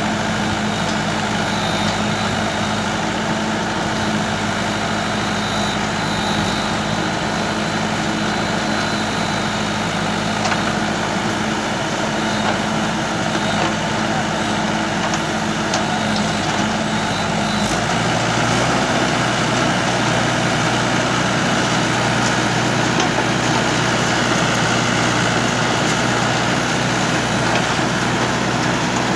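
Mahindra 475 tractor's four-cylinder diesel engine running steadily while it powers a rear-mounted backhoe digging soil. The engine note changes about two-thirds of the way through.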